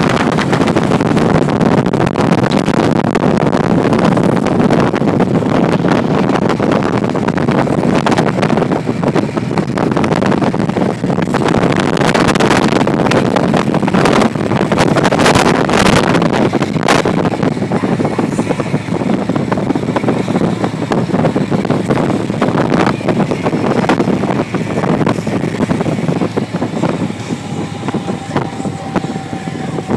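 Motorcycle running at road speed, its engine noise mixed with heavy wind buffeting on the microphone.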